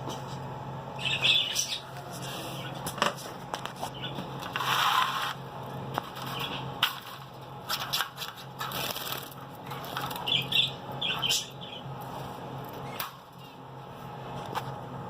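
Small caged finches fluttering and flapping about their cage, with sharp clicks and a few short chirps, over a steady low hum.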